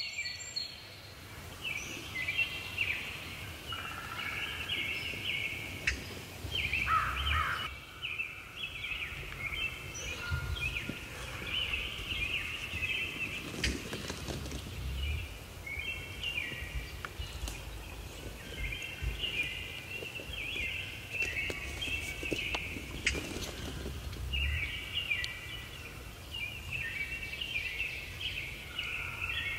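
Songbirds singing in spring woodland: short high chirping phrases repeated again and again, with a low rumble underneath.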